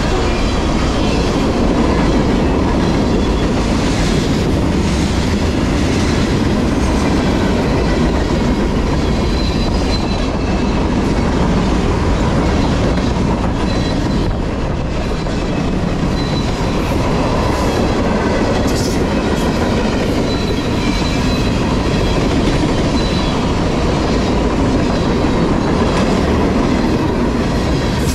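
Freight cars of a long CSX manifest train rolling past close by: a steady rumble and rattle with wheels clacking over rail joints. A faint high wheel squeal comes and goes.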